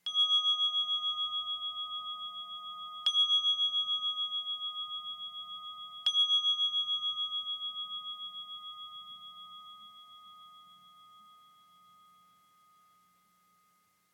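Singing bowl struck three times, about three seconds apart, each strike ringing on with a wavering pulse. After the third strike the ring fades away over about eight seconds.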